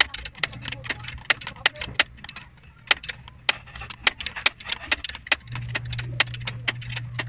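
Quick, irregular metallic clicks and clinks of a hand tool working the serpentine belt's tension adjuster screw, over a steady low hum.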